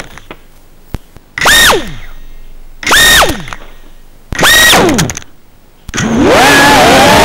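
FPV quadcopter's brushless motors giving three short full-power bursts in crash-flip (turtle) mode, each a high whine that falls away as the props spin down, trying to flip the upside-down drone back over. About six seconds in the motors spin up and keep running as the quad takes off again.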